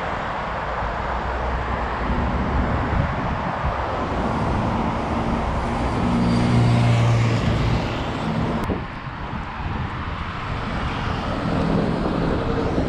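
Road traffic noise with a motor vehicle passing, loudest about seven seconds in, and a sharp click shortly after.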